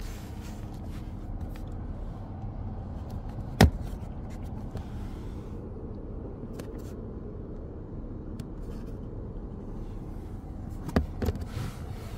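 Hinged plastic cover of a van's 220 V power socket snapping open with one sharp click about three and a half seconds in, and two smaller clicks near the end as it is shut again, over a steady low rumble.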